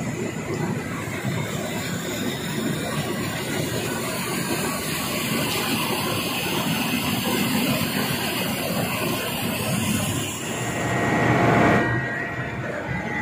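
Ship's deck belt conveyor running loaded with woodchips: a steady rumbling rattle of belt and rollers. It swells to its loudest a little before the end, then the high hiss drops away.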